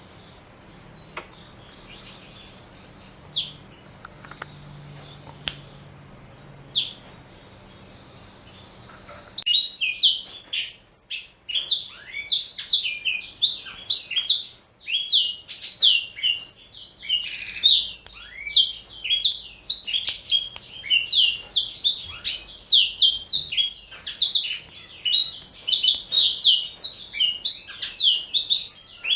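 Male blackthroat (black-throated canary) singing: after a few quiet seconds with only faint hiss and the odd soft note or click, a long, loud song of rapid, quick-changing high notes starts abruptly and runs on without a break.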